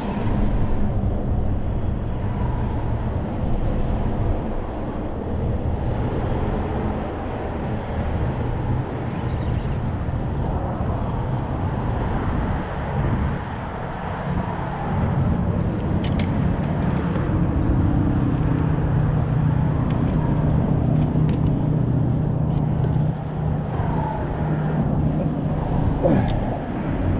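Steady low rumble of road traffic on the bridge overhead, with one vehicle's drone held for several seconds in the second half and a few brief clicks.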